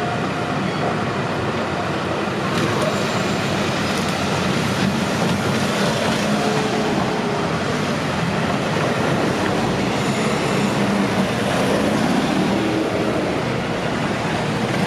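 Shizuoka Railway electric commuter train running through a level crossing at close range: a steady, loud noise of wheels on rail.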